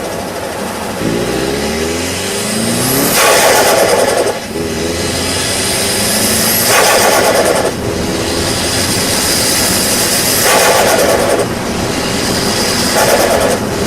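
Turbocharged Nissan SR20DET engine revved about four times, the turbo whistle rising in pitch with each rev. Each time the throttle closes there is a burst of compressor-surge flutter: boost pressure with nowhere to go escapes back out through the spinning compressor wheel.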